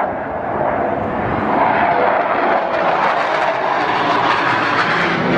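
Aircraft engine noise from an airplane flying over, loud and steady.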